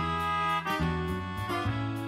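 Light instrumental background music: held melody notes over a bass line, changing every half second or so, with a soft percussion tick about three times a second.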